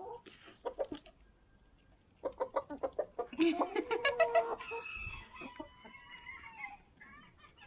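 Hens clucking as they crowd round to peck feed, with quick pecking taps and a long drawn-out call about halfway through that holds and then falls in pitch.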